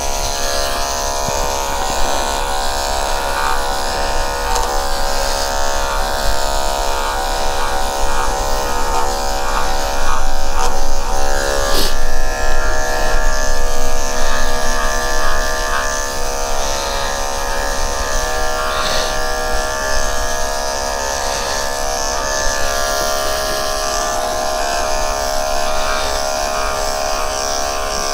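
Electric dog-grooming clippers running with a steady buzz as the blade works through a heavily matted Bichon Frise coat, growing louder for a few seconds midway.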